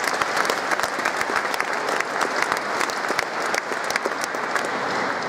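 Large audience applauding, many hands clapping in a steady, dense patter in a big stone hall.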